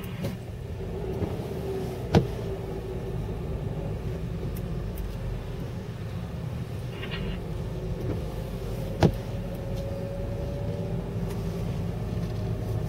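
Steady rumble of a car driving on a wet highway, heard from inside the cabin, with engine and tyre noise. Two sharp clicks, about two seconds in and again about nine seconds in.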